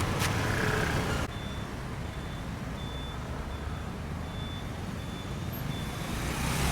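Road traffic, cutting about a second in to a vehicle's low engine rumble under a reversing alarm: short high beeps on one pitch, a little over one a second. Near the end the rumble swells again.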